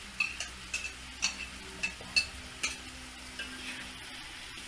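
A spatula stirring in a frying pan of sambal, with sharp clicks against the pan roughly every half second over a faint sizzle; the clicks thin out after about three seconds.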